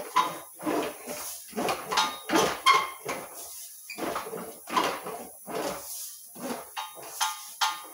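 English wheel rolling a sheet-metal panel back and forth over a flat anvil, ironing out shrink marks: a rhythmic run of squeaky, metallic rolling strokes, about two a second.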